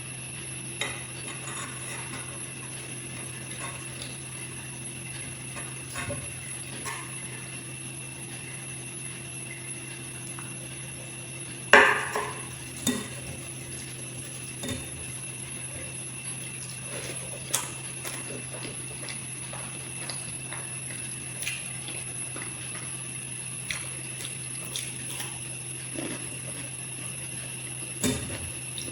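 Scattered clinks and knocks of tableware while eating, the loudest about twelve seconds in, over a steady electrical hum.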